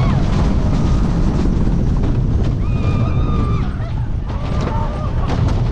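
Wooden roller coaster train running at speed: a loud, steady noise of wheels on the track and rushing wind, with rattling clicks. A rider's held scream comes about two and a half seconds in, and a shorter cry follows near the end.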